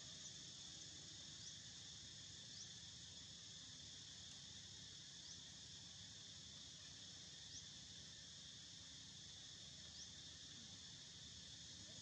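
Faint, steady, high-pitched insect chorus, with brief rising chirps every couple of seconds.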